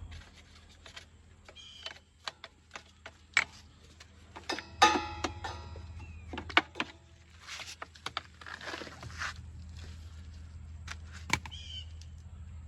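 Hands handling parts of a push lawn mower: scattered clicks and knocks of plastic and metal, with a denser rattling clatter about five seconds in.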